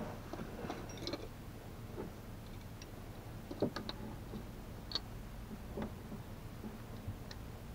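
Faint, irregular clicks and clinks of a small wrench on the oil filter as it is given a final tightening, about eight short clicks spread over several seconds.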